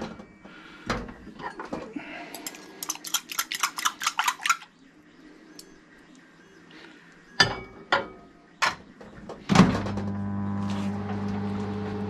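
A metal fork clicking and scraping quickly against a glass bowl as scrambled egg is stirred, followed by a few knocks and a clunk as the Russell Hobbs RHMM715B microwave's door shuts about nine and a half seconds in. The 700 W microwave then runs with a steady low hum.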